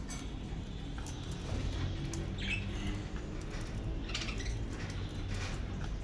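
Pet budgerigars giving a few short soft chirps, about two and a half and four seconds in, among small scattered clicks.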